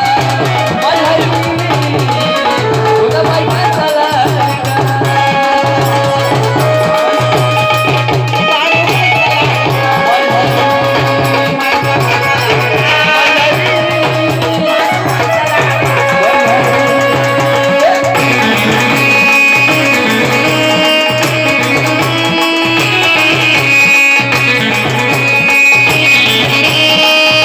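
Instrumental music with a tabla-style hand drum keeping a steady beat under melody lines.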